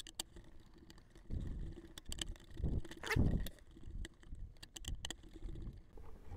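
Screwdriver tightening the small screws of a control horn into its nylon backplate on a model plane's elevator: faint scattered clicks and handling noise as the screws are turned a little at a time.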